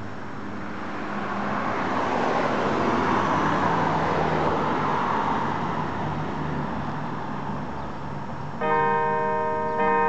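A car passes along the street, its noise rising over a couple of seconds and then fading. Near the end, church bells start to ring with a sudden strike and long ringing tones, and another pitch follows just after.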